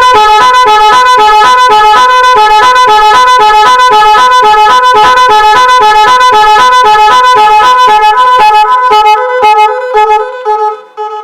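A two-horn multi-tone horn kit, high-tone and low-tone horns driven by its control unit, playing a loud, fast melody of alternating high and low notes. This is a new pattern selected by touching the trigger wire twice. Near the end the notes break up and stop.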